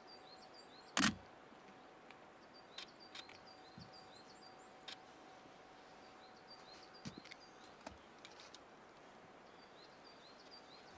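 Quiet ambience: small birds calling in short runs of quick, high chirps, with a faint steady tone for the first several seconds and a single sharp knock about a second in.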